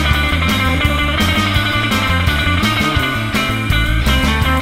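Background rock music with guitar and a bass line over a steady drum beat.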